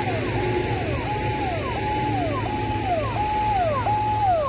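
Ambulance siren sounding in a fast repeating cycle: a held high tone that swoops down, about one and a half times a second, over a steady low engine rumble.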